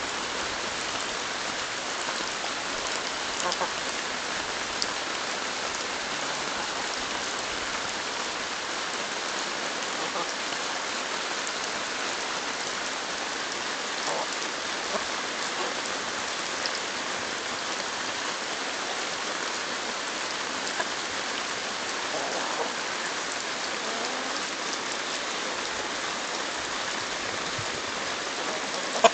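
Steady rain falling: an even hiss with a few faint scattered ticks.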